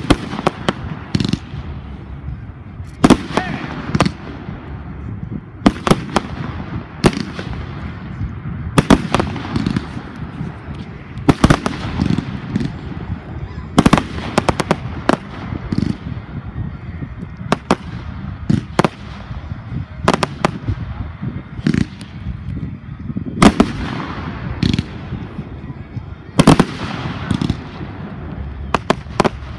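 Fireworks display: aerial shells bursting in irregular succession, a sharp bang every second or two, with a steady low rumble between the bursts.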